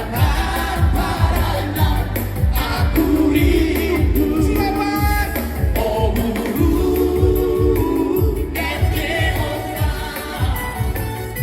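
Music with a group of voices singing together over a steady low beat.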